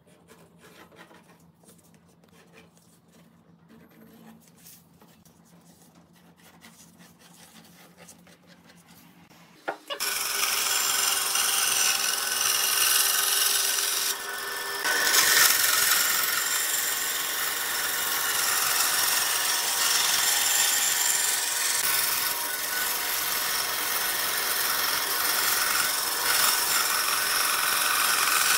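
Faint scratching of a pencil tracing a curved template onto a wooden board, then, about ten seconds in, a bandsaw abruptly takes over, its blade cutting through the board along the curve with a loud, steady sawing noise over the motor's hum.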